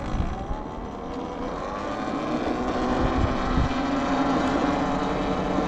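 Talaria Sting R MX4 electric dirt bike's motor whining as the bike accelerates, its pitch climbing steeply at first and then rising gently, with wind rumble on the microphone underneath.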